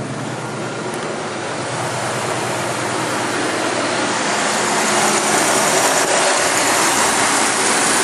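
Oldsmobile 307 V8 of a 1985 Buick Riviera running at idle soon after a hard cold start, a steady noise that grows gradually louder.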